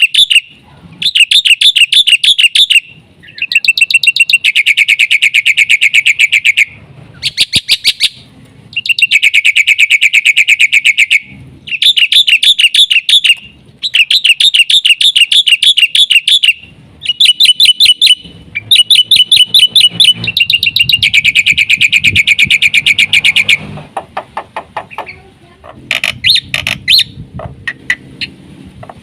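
Black-winged myna (jalak putih) singing loudly in repeated runs of fast, chattering notes, each run one to three seconds long with short pauses between. Near the end the song turns softer and more broken up.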